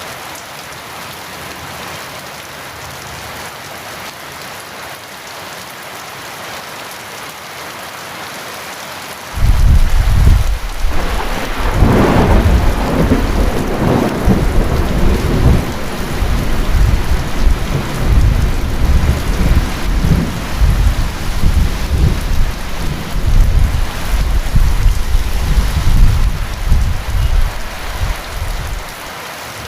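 Heavy rain falling steadily. About nine seconds in, thunder breaks in suddenly with a sharp crack, then rumbles on loudly for nearly twenty seconds before dropping away near the end.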